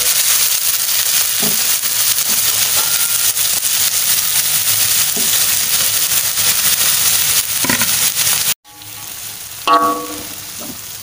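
Chopped paku pakis (vegetable fern) sizzling loudly in hot oil in a metal wok. Past eight seconds in, the sizzle drops suddenly to a quieter hiss, and near the end a spatula gives a ringing metal clank against the wok.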